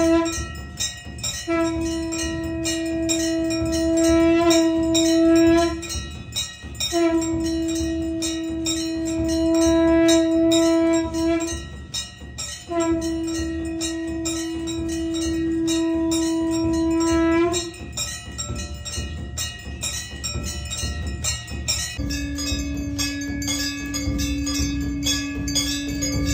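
Temple aarti: a conch shell blown in long, steady blasts of about four to five seconds each, three in a row with short breaks, then a lower held note near the end, over rapid continuous ringing of temple bells.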